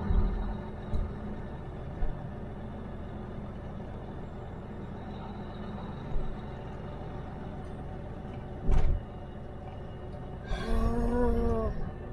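Steady engine and road hum inside a pickup truck's cab, with a single sharp knock about nine seconds in and a brief wavering tone near the end.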